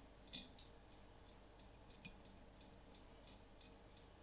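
Faint, quick ticking, about three ticks a second, as black fly-tying thread is wrapped from a bobbin holder around a small plastic tube. There is a sharper click about a third of a second in.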